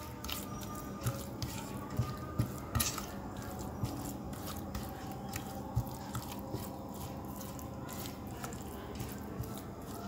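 Spatula stirring a thick, wet spice marinade of yogurt, ginger-garlic paste and ground spices in a steel bowl: soft squelching with irregular light clicks and taps against the bowl.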